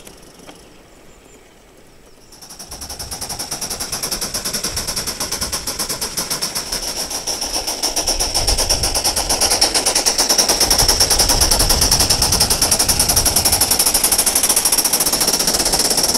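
Aster gauge 1 live-steam model of a class 52 locomotive running past close by: rapid, even exhaust beats over a steady steam hiss, growing louder from about two seconds in.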